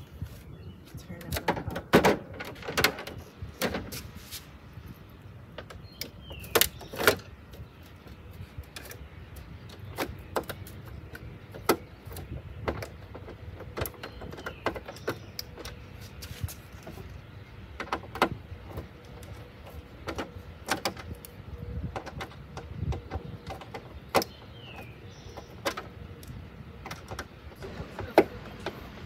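Irregular clicks, taps and knocks of a car's rear license plate and its frame being handled and screwed on against the trunk lid, over a low steady background rumble.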